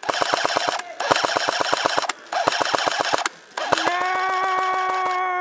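Airsoft M249 support gun firing long full-auto bursts, about fifteen shots a second, broken by three short pauses. In the last part of the burst a man yells a long, drawn-out "Nooooo!"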